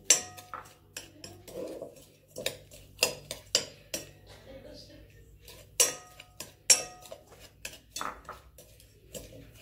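Metal spoon stirring crushed Oreo cookie crumbs in a glass bowl, scraping and clinking against the glass in irregular sharp knocks, with a few louder clinks about six and seven seconds in.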